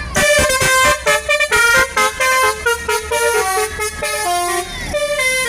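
Telolet bus horn, a set of twelve roof-mounted air-horn trumpets, playing a loud melody. It starts as a fast run of short, stepped notes and turns to slower, longer notes after about two seconds.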